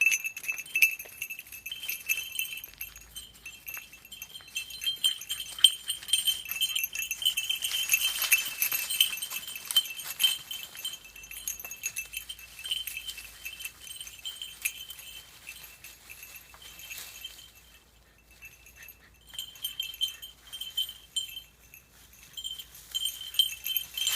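A small bell jingling steadily, as it does when shaken by walking; it goes nearly quiet for a couple of seconds toward the end, then jingles again.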